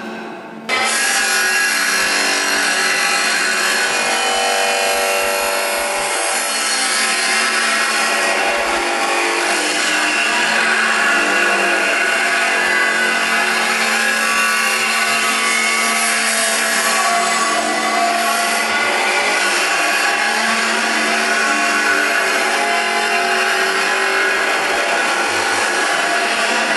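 Abrasive disc of a Clansman Dynamics G30P manipulator grinder grinding a large metal casting, a steady, loud grinding noise that cuts in abruptly about a second in.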